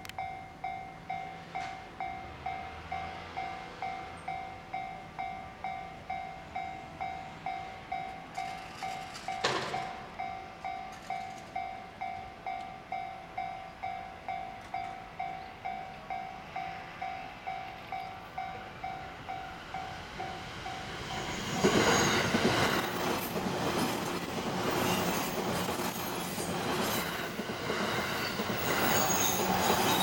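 Japanese level-crossing warning bell ringing about one and a half times a second, with one brief sharp sound about nine seconds in. About 21 seconds in, an E657 series limited express train reaches the crossing and passes close by, its wheels clattering over the rail joints and drowning out the bell.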